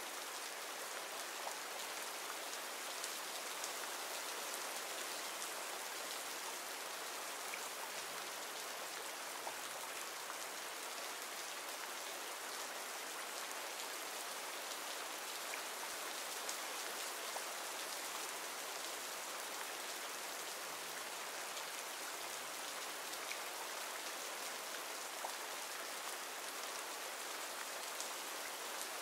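Recorded rain ambience: steady rainfall, an even hiss with small drop ticks scattered through it.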